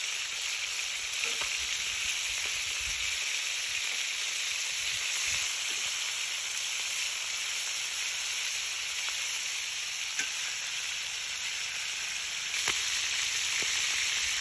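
Marinated chicken pieces frying in hot oil in a cast-iron skillet: a steady sizzling hiss, with a few light clicks of metal tongs against the pan as the pieces are turned.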